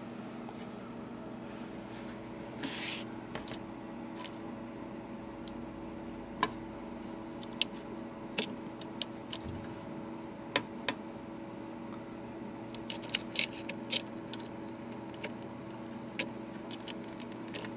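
Steady low hum with several fixed tones, with scattered sharp light clicks and taps, about a dozen in all, and one short hiss about three seconds in.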